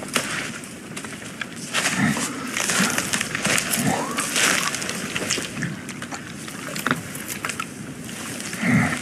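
Forest ambience from a film scene: wind in the open air with steady crackling and rustling, like leaves and twigs. A few short low vocal sounds rise out of it now and then.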